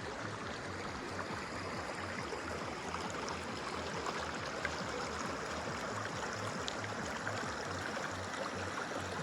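Stream flowing: a steady rush of water, with occasional faint small ticks.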